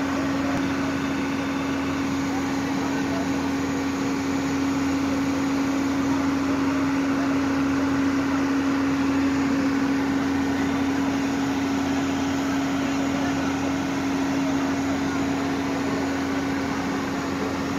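Recovery crane truck's engine running at a steady, unchanging drone, with the rushing of floodwater beneath it.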